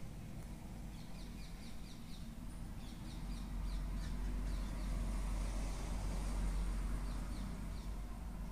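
Small birds chirping in short, quick runs of high notes, over a steady low hum and rumble.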